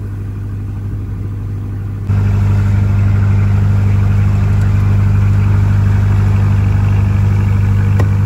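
Fishing boat's engine running steadily with a low hum; about two seconds in it suddenly gets louder and holds there.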